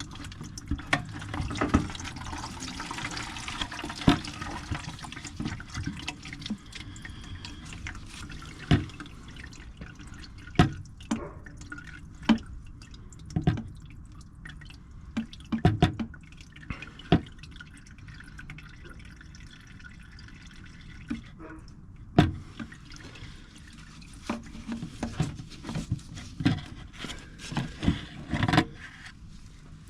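Leftover diesel trickling and dripping from the opened EcoDiesel fuel filter housing, with scattered sharp clinks and knocks as the parts are handled.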